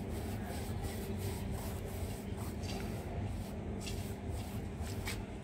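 Paintbrush strokes scrubbing paint onto a rough brick wall: a run of short scratchy rubs, about two or three a second, over a steady low rumble.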